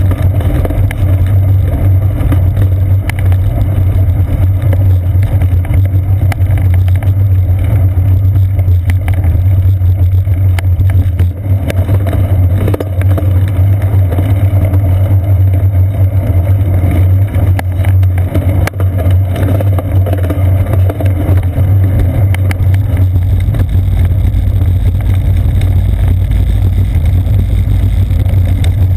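Steady low rumble of wind and road vibration picked up by a bicycle's seat-post-mounted camera while riding. The tyres are rolling over brick-paved and asphalt streets.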